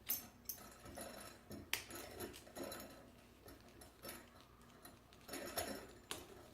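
Quiet handling of a metal belt buckle on a leather belt: a few sharp clicks and light clinks, with soft rustling between them.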